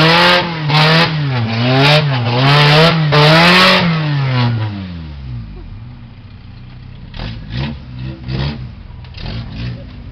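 Off-road trial buggy's engine revving hard in four or five quick surges as it crawls over rocks. About five seconds in it drops back to a lower, quieter running, with a few short throttle blips near the end.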